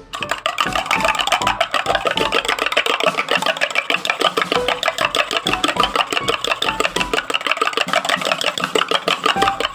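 Spoon beating raw eggs in a stainless-steel tumbler, clinking against the metal sides in a rapid, steady rhythm as the eggs are whisked.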